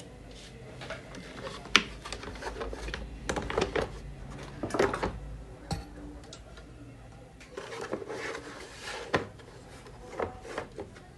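Irregular knocks, clicks and rubbing of hard parts being handled, with the louder knocks near two seconds in and around five and nine seconds in.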